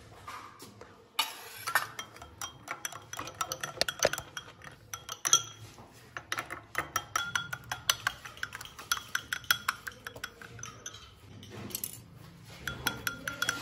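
Metal teaspoon stirring food colouring into sugar syrup in a small glass bowl, clinking rapidly and unevenly against the glass. It starts suddenly about a second in.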